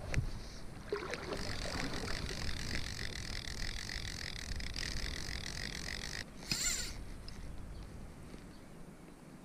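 Click-pawl fly reel buzzing steadily for about five seconds as a hooked trout pulls line off it. A short, sharper burst of clicking comes about six and a half seconds in, then it dies away.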